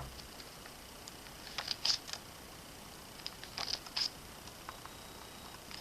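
Pages of an album photo book being turned and handled: two short bursts of paper flicks and rustles, about two seconds apart.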